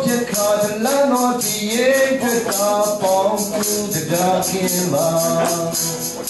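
A man singing into a microphone, accompanying himself on acoustic guitar with steady, quick strumming.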